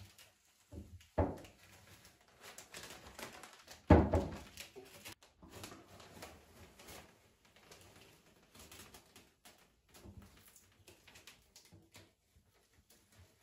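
Frisket masking film being peeled off a painted canvas by hand: irregular crackling and rustling of the thin plastic sheet, with a sharp thump about a second in and a louder one about four seconds in.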